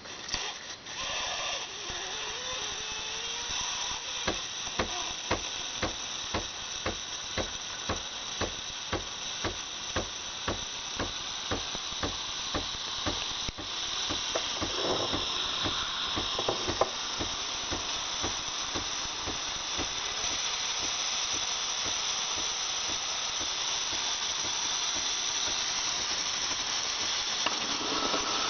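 Breville BES860XL espresso machine's steam wand hissing steadily, with the machine's pump ticking about twice a second through the first half.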